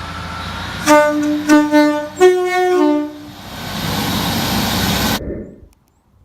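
Train horn sounding three short blasts, several notes at once in a chord, with the pitch of the chord changing on the last blast. The steady rumble of the running train lies under it and carries on after the horn, then cuts off suddenly about five seconds in.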